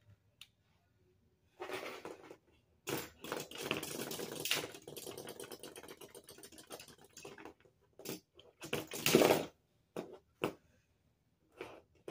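Lego spinning tops whirling and clashing on the plastic floor of a tub arena: a fast, continuous rattle of plastic clicks for several seconds, then a few sharp plastic knocks in the second half, the loudest about nine seconds in.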